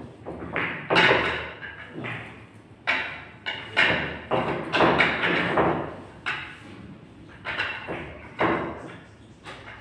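Pool balls being racked: the resin balls knock and clack against one another and the wooden triangle as they are gathered and pushed together, in a string of irregular knocks.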